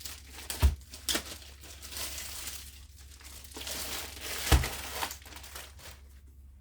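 Plastic packaging crinkling and rustling as it is handled, with two dull thumps, about half a second in and about four and a half seconds in, that are the loudest sounds.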